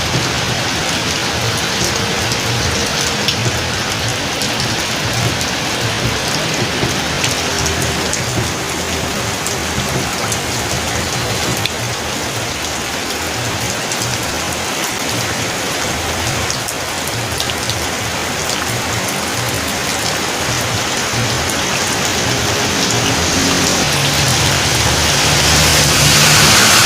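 Steady heavy rain pattering on surfaces. Near the end a vehicle's engine comes closer and grows louder.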